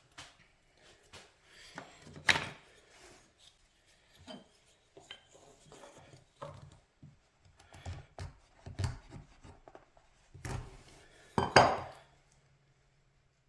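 Wooden pieces and hand tools being picked up and set down on a wooden workbench: irregular knocks and clatter, loudest about two seconds in and again near the end.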